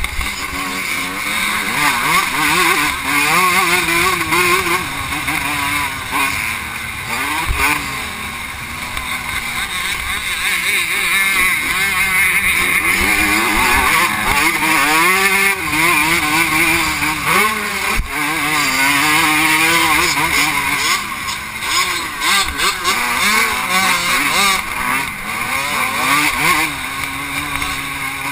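Vintage 125cc two-stroke motocross bike engine racing under load, its pitch repeatedly climbing and dropping as the rider works the throttle and gears, with wind rush on the helmet camera.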